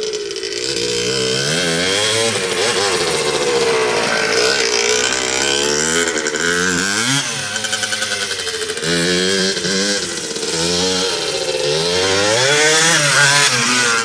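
Suzuki RM60 dirt bike's small two-stroke single-cylinder engine being ridden, revving up and easing off again and again, its pitch rising and falling several times.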